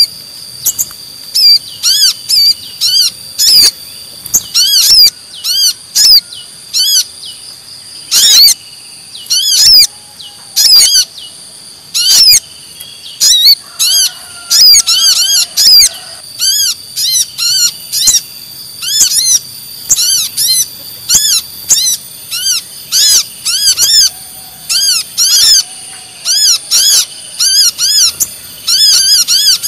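Bird-lure recording of brown-throated sunbird ('kolibri kelapa') calls mixed with sogon sunbird calls: loud, rapid, high-pitched chirps, each rising and falling, coming in quick runs throughout, over faint steady high tones.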